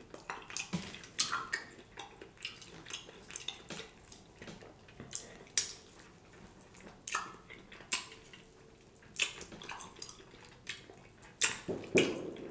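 Close-miked wet chewing and lip smacking of a man gnawing meat and fat off a bone-in ribeye bone held in his hands: irregular sharp smacks and clicks, several a second in clusters.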